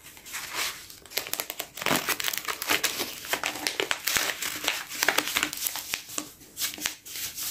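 Paper page of a journal crinkling and rustling as it is rolled and folded by hand around a small object, with irregular crackles.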